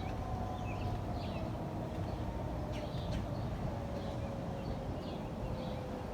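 Outdoor tornado warning siren holding a steady tone that slowly falls in pitch as it winds down, with birds chirping over a steady low rumble.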